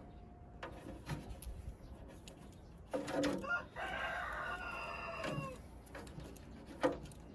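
A rooster crows once, a drawn-out call of about two and a half seconds starting about three seconds in, whose pitch falls at the end. A few short clicks and taps sound around it.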